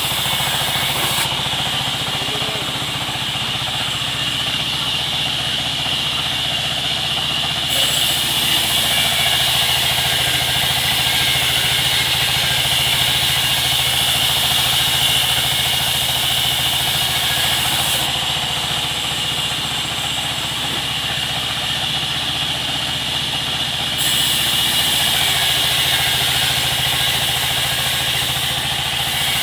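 Sawmill machinery running steadily with a constant high whine. A higher hiss drops away twice for several seconds at a time.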